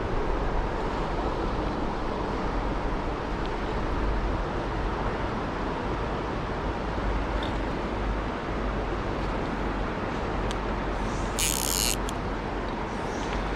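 Steady rushing of a mountain stream, with a short sharp hiss near the end.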